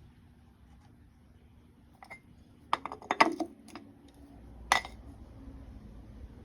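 Light metallic clicks and clinks of small engine parts and hand tools being handled during piston ring gap checking: a cluster of clinks about two to four seconds in, then one sharper clink.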